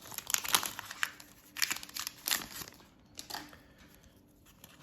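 Foil booster pack wrapper crinkling as it is handled and opened, with dense crackling for the first two and a half seconds or so, then a few fainter rustles.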